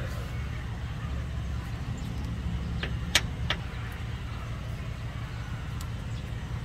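Three sharp metal clicks close together near the middle, from a hex key on the rear differential drain plug as it is loosened, over a steady low engine rumble in the background.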